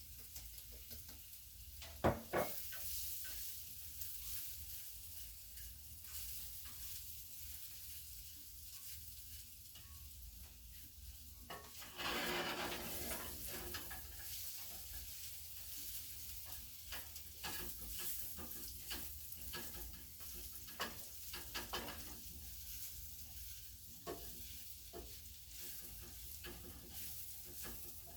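Beans stir-fry with grated coconut sizzling in a pan while a spoon stirs it, the spoon clicking and scraping against the pan. A sharp knock comes about two seconds in, and from about twelve seconds in the sizzling and stirring are louder.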